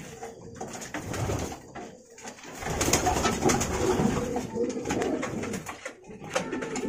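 Domestic pigeons cooing in a small loft, louder from about two and a half seconds in, with scattered light knocks from a hand working at a slatted wooden cage.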